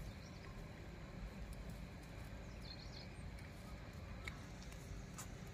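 Quiet rural outdoor ambience: a steady low rumble, a faint bird chirp about two and a half seconds in, and a few faint clicks near the end.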